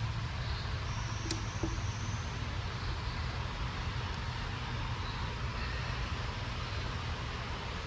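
Steady low hum and hiss of workshop background noise, with one light sharp click about a second in.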